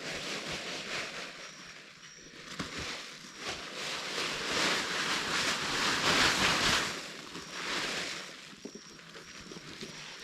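Rustling and scraping of sawdust and soil being worked into a garden bed, loudest in the middle. A short, high chirp repeats every second or two in the background.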